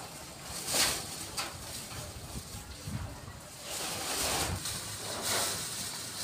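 Plastic bag and vine leaves rustling in uneven bursts, loudest for a couple of seconds past the middle, as a winter melon is bagged and cut from its vine.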